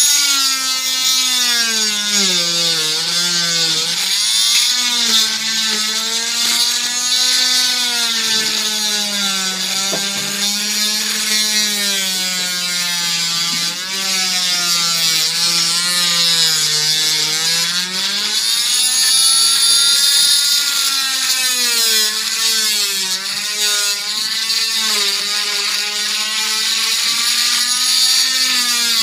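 Oscillating cast saw running and cutting through an arm cast: a steady motor whine whose pitch wavers and sags as the blade is pressed into the cast, over a high hiss from the cutting.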